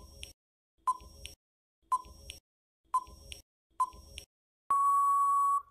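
Electronic quiz countdown-timer sound effect: five short ticking beeps, one a second, then one long steady beep about a second long near the end, signalling that time is up.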